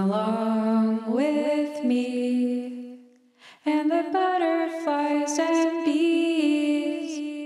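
Unaccompanied singing: one voice holds long, gliding notes in two phrases, with a short break about three and a half seconds in.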